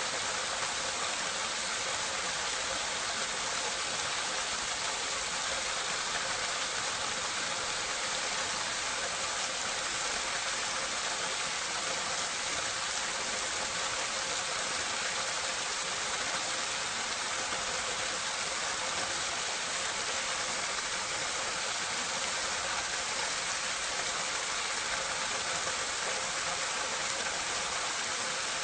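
Water running from a drainpipe into a drain gully, recorded close up: a steady, even rushing splash.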